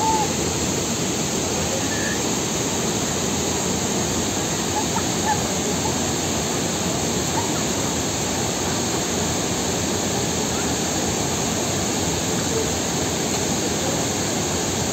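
Large waterfall with a steady, unbroken rushing sound.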